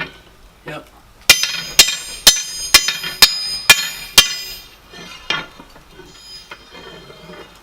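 Hand hammer striking a steel crowbar on an anvil during forging: seven hard blows about two a second, each with a metallic ring. Lighter, quieter taps come before and after them.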